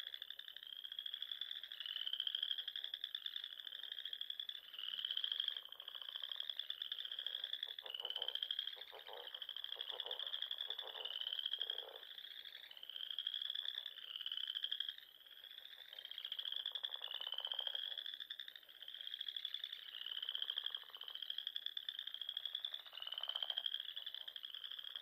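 Frogs calling in chorus: a string of short rising chirps, about one a second, with lower pulsing trills from other frogs coming in now and then.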